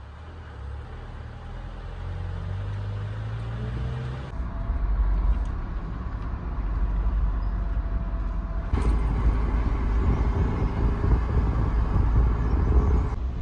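Car engine and road noise while driving, the engine note climbing over the first few seconds as it speeds up. The sound changes abruptly and grows louder about four seconds in and again about nine seconds in.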